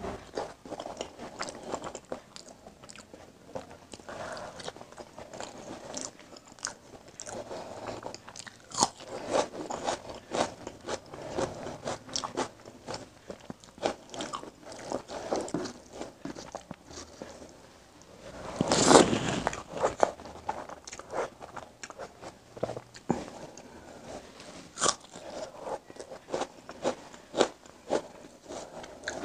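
Close-miked chewing and wet mouth sounds of a person eating rice and egg curry by hand, with the squish of fingers mixing rice into curry on a steel plate. Many small crackles and clicks, with one louder, longer noise about two-thirds of the way through.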